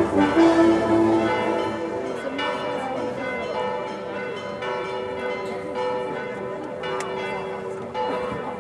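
Church bells pealing: several bells struck again and again, their rings overlapping and hanging on between strikes.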